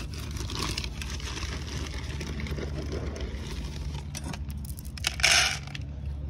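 Dry dog food poured into a plastic bowl: a short, loud rattling rush about five seconds in, over a steady low hum.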